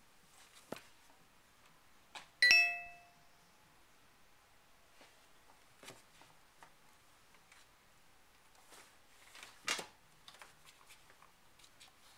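A single bright, bell-like ding about two and a half seconds in, struck sharply and dying away within about half a second. Around it are faint scattered taps and clicks, with a sharper tap near ten seconds.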